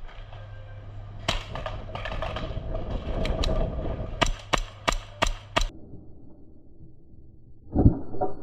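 Airsoft gun firing single shots: a few scattered cracks, then five in a row at about three a second. A dull thump comes near the end.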